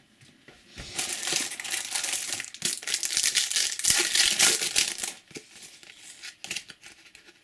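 Foil wrapper of a Match Attax trading-card pack crinkling as it is handled and opened. The crackle lasts about four seconds, then gives way to fainter rustles and clicks.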